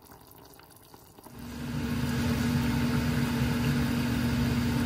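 A steady machine hum with one constant low tone over a low rumble. It swells in about a second and a half in, then holds level.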